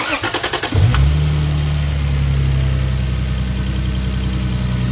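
A 2004 Lexus GS 300's 2JZ-GE inline-six is cranked by the starter for under a second, catches with a brief rise in revs about a second in, and then settles into a steady idle. This is the first start after a new VVT-i solenoid has been fitted.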